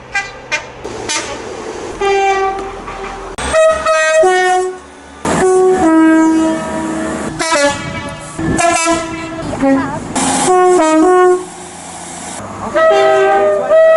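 Train horns sounding a series of separate two-tone blasts, many stepping from a high note to a low one. One blast follows another with abrupt changes in pitch and loudness between them.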